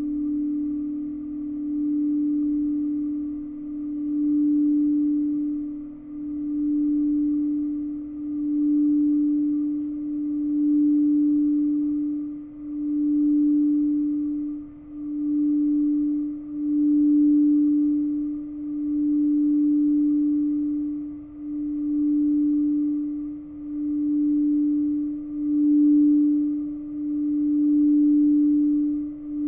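Crystal singing bowl being sung with a mallet circled around its rim: one steady low, pure note that swells and dips in a slow wobble about every two seconds.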